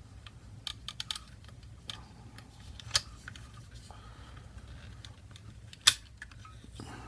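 Small parts clicking and tapping against an airsoft gun's lower receiver as they are handled and fitted into place, with two sharper clicks about three and six seconds in.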